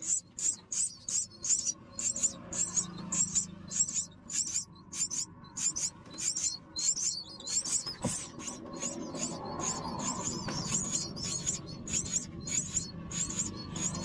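Myna nestlings begging for food: short, high-pitched cheeps repeated rapidly, about three a second, as the parent feeds them.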